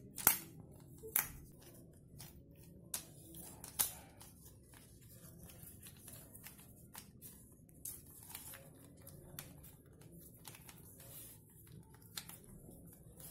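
Plastic segments of a snake puzzle clicking as they are twisted and handled: an irregular scatter of sharp clicks, a few louder ones in the first four seconds.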